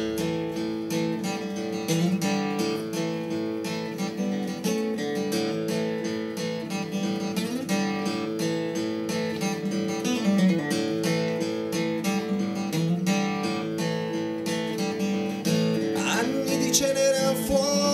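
Acoustic guitar strummed in a steady rhythm of chords, the instrumental opening of an acoustic Italian rock song.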